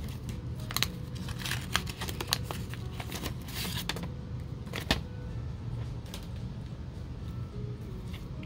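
Wax paper wrapper of a trading card pack crinkling as it is opened, with cards handled and shuffled, giving a string of small clicks and rustles and a sharp snap about five seconds in. A low steady hum runs underneath.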